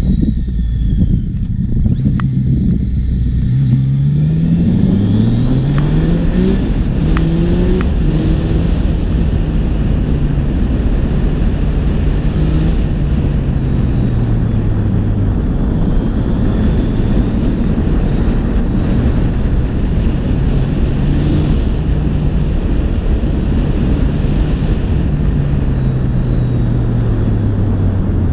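Yamaha XSR900's three-cylinder engine accelerating up through the gears, its pitch climbing in several quick steps with a dip at each upshift. It then runs at speed, rising and falling gently as the throttle is eased, and winds down near the end. Wind rushes over the microphone throughout.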